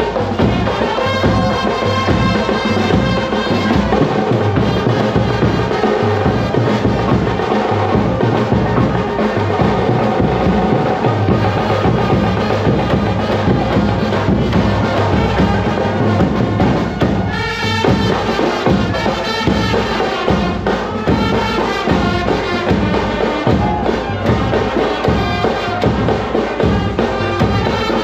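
Brass band playing: horns carry a melody over a large bass drum and smaller side drums beating a steady rhythm.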